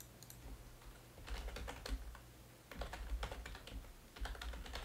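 Typing on a computer keyboard: three quick runs of keystrokes, with short pauses between them.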